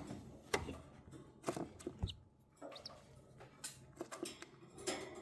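Cockatiel moving about, making scattered sharp clicks and taps, with a couple of brief, faint high chirps partway through.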